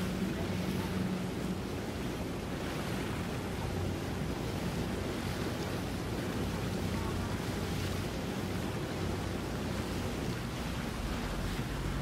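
Wind on the microphone and water noise from waves, steady throughout, with a faint low boat-engine hum at the start and again near the end.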